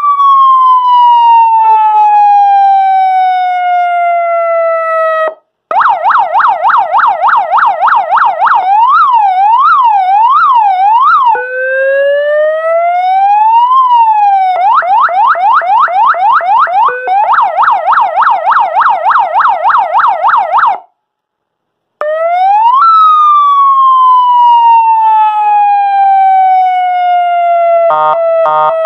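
200-watt electronic police siren sounding through a flat siren speaker and cycling through its tones. Long wail sweeps alternate with fast yelp sweeps of several a second, with a silent break of about a second. A harsh buzzing horn tone cuts in near the end.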